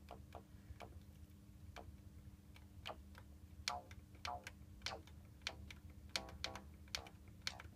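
Akai S5000 sampler's front-panel enter button clicking, a dozen or so irregular presses, some in quick runs, as programs are stepped through. A steady low hum runs underneath.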